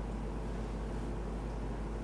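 Steady low hum under a faint even hiss of background noise, with no distinct event.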